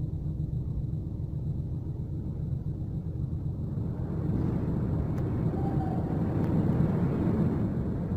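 Low, steady rumble of heavy truck engines on a ferry's enclosed vehicle deck, growing louder about halfway through.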